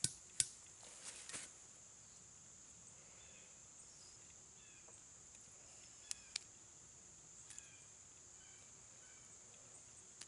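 Insects buzzing steadily in the woods, one high continuous note. A few sharp clicks cut through it: two in the first half-second, a small cluster soon after, and two more about six seconds in. Faint short chirps are heard now and then.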